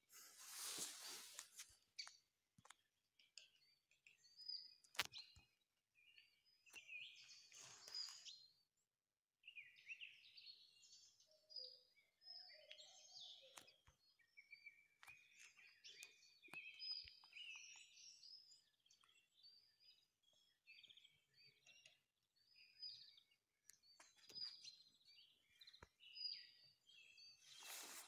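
Faint woodland birdsong: several songbirds chirping and warbling in overlapping short phrases. A couple of brief rustling noises come near the start and again a few seconds later.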